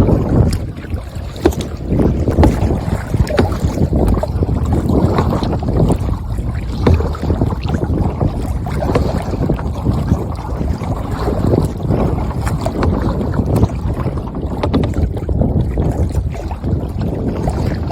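Wind buffeting the microphone, with choppy water sloshing around a kayak out on the water.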